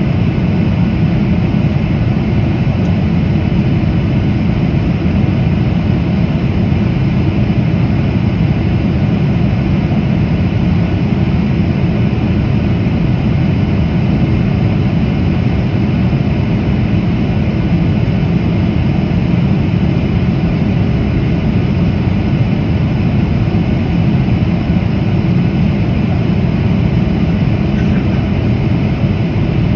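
Steady, low cabin drone of a Boeing 737-800 in flight, heard from a window seat over the wing: its CFM56-7B turbofan engines and the rush of air along the fuselage.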